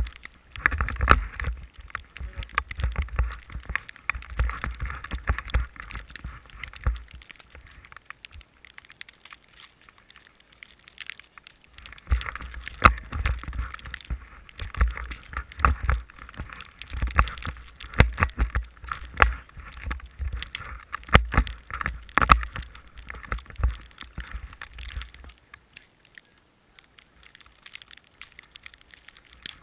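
Snowmobile ploughing through deep powder, heard through a helmet camera: snow and wind buffet the microphone with a deep rumble and many sharp knocks, in two long stretches with a quieter spell between them and after them.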